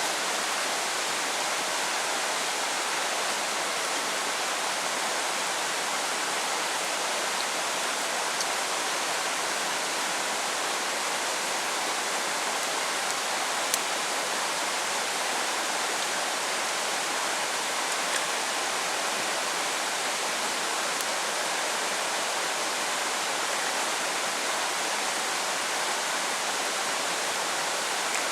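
Heavy typhoon rain falling steadily, an even hiss, with a single sharp tick about halfway through.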